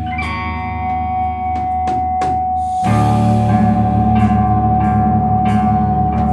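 Live slowcore/noise rock band playing: a held note rings over sparse drum hits, then the full band comes in heavier about three seconds in, with steady drumming.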